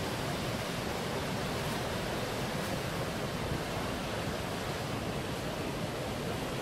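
Whitewater rapids of the Potomac River rushing, a steady, unbroken noise of churning water.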